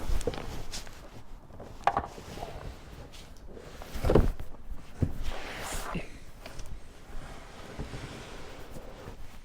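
Scattered thumps and knocks with handling noise, the loudest knocks about two and four seconds in, and a brief rushing swell around five to six seconds in.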